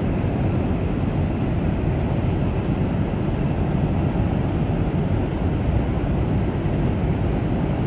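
Freight train rolling across a railroad bridge, heard as a steady low rumble.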